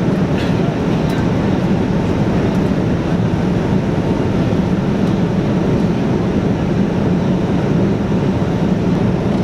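Steady cabin noise of a Boeing 787-9 in flight: an even rush of airflow and engine noise with a low hum, holding constant throughout.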